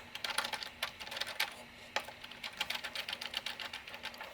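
Flathead screwdriver turning a small screw into the aluminium switch opener: a run of quick, irregular clicks and light scratches.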